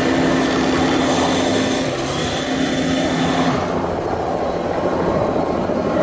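Engine running with a steady drone over loud rushing noise; the drone's hum stops about three and a half seconds in, leaving the rushing noise.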